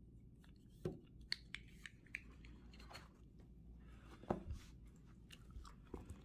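Handling noise from a mini tripod and a foam-lined hard-shell case: light clicks and knocks as the tripod's legs are folded and it is set into its foam slot, then the case's fabric flap is turned over. Two sharper thumps stand out, about a second in and just past four seconds.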